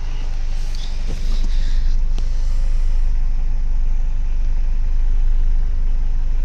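Kia Pride CD5's four-cylinder engine idling steadily at about 1,000 rpm, a steady low rumble. A couple of light knocks come about one and two seconds in.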